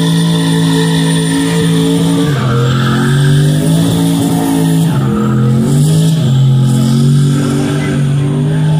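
Car engine held at high revs during a burnout, with tyres spinning on the pavement. The engine pitch drops and climbs back several times as the throttle is worked.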